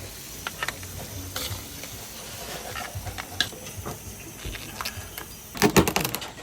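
Food frying in hot oil, with a steady sizzling hiss and scattered clinks of utensils. A burst of louder clattering comes near the end.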